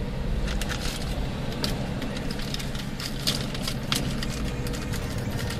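Car engine and road noise heard from inside the cabin while driving, a steady low hum, with light irregular ticks and rattles, such as keys or loose items jangling.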